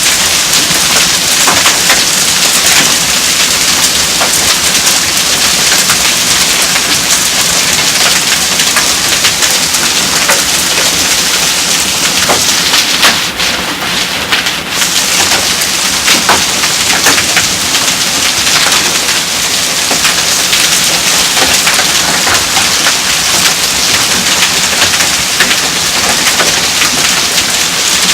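Hail coming down hard: a dense, steady hiss thick with small sharp ticks of hailstones striking. The highest part of the hiss thins out for a couple of seconds about halfway through.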